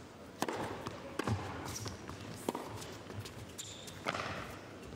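Tennis ball being struck by rackets and bouncing on a hard court during a rally: sharp pops about a second apart over a low crowd hush.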